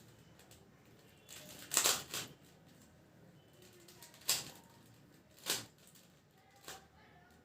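Plastic 3x3 Rubik's Cube layers being turned by hand. Each turn is a short clicking rattle; there are a few separate turns, the loudest about two seconds in.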